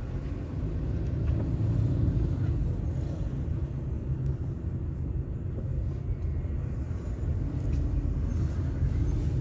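Steady low rumble of a car's engine and tyres heard from inside the cabin as it moves slowly through traffic.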